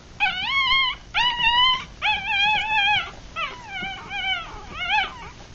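Newborn Rat Terrier–Chihuahua cross puppies, three days old with eyes still closed, crying in a run of about seven high-pitched squealing cries. The first three are long and wavering and the rest come quicker and shorter.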